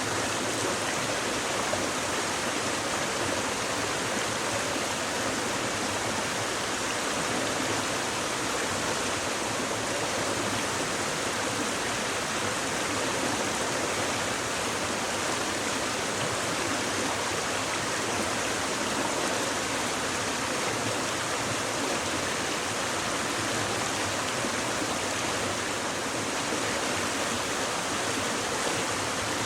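Shallow stream babbling and rushing over stones, a steady, unbroken sound of flowing water.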